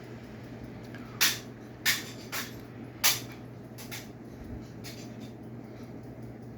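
Six sharp knocks, the loudest three about a second, two seconds and three seconds in, over a steady low hum.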